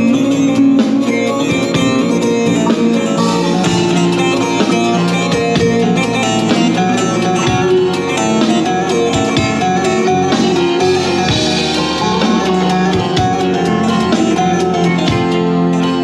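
Instrumental passage of a Turkish song, led by a plucked string instrument playing a busy melody over a full, steady band accompaniment, with no singing.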